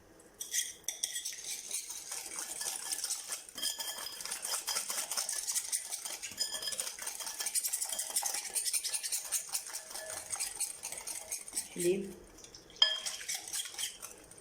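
An egg mixture being beaten by hand in a bowl, the utensil clicking rapidly and continuously against the bowl, with a sharp clink near the end.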